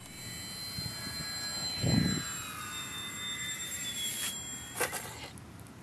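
Radio-controlled park-scale Monocoupe 90A model airplane's motor and propeller whining as it flies low past, the pitch falling a little as it goes by about four seconds in. A brief loud low rumble about two seconds in.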